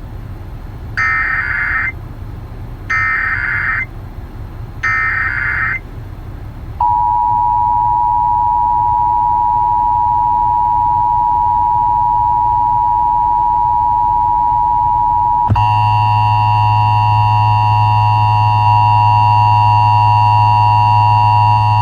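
Emergency Alert System broadcast tones: three short bursts of screeching digital header data, then the steady two-tone attention signal. About two-thirds of the way through, the attention signal turns harsher and buzzier, with a low hum under it.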